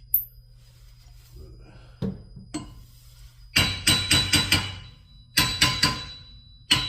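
Hammer tapping a wheel spacer onto a car's rear wheel hub to seat it tight: sharp ringing taps, a couple at first, then quick runs of several strikes in a row.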